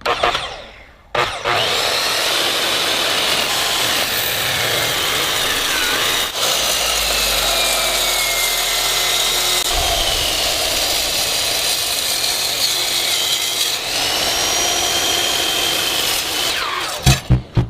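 A power cutting tool runs steadily as it cuts into a hard object. Its high whine dips and rises as the blade is loaded. The tool starts about a second in and stops near the end.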